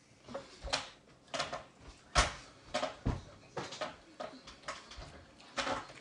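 Children's stifled laughter and giggling in short, irregular bursts, with a sharp knock about two seconds in.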